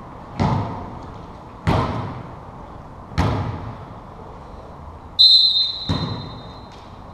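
A volleyball bounced on a hardwood gym floor four times, about a second and a half apart, each bounce echoing in the hall, as the server readies a serve. About five seconds in, the referee's whistle blows one steady high blast of about a second and a half, signalling the serve.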